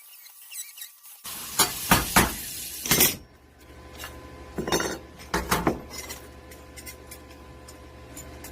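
Metal pieces knocking and clinking together as they are handled, with a tight run of knocks a second or two in and two more a few seconds later, over a low steady hum.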